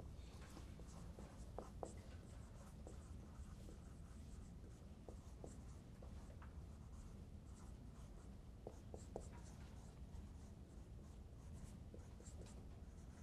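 Marker writing on a whiteboard: faint scratching strokes and small taps of the felt tip, over a steady low room hum.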